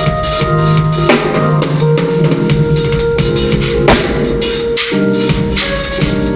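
Band music at a sound check: a drum kit with bass drum and snare playing under sustained pitched instrument notes.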